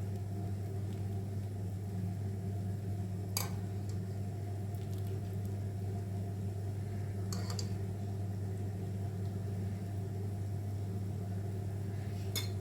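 Steady low hum of a running kitchen appliance or fan, with three brief clinks of a utensil against a pot, spaced about four seconds apart, as the solids are lifted out of chicken stock.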